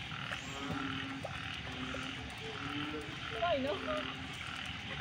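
Frogs croaking in a chorus of short, repeated low calls over a steady high hiss. About three and a half seconds in, a brief wavering call rises above them.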